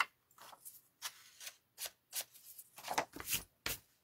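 Frayed foil edges of a paper card layer being sanded by hand: a series of short, irregular rubbing strokes, the loudest about three seconds in.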